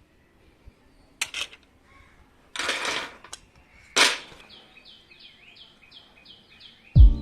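A few short noisy bursts, the loudest a sudden one about four seconds in, then a bird chirping rapidly, about four high chirps a second. Music with a steady beat starts near the end.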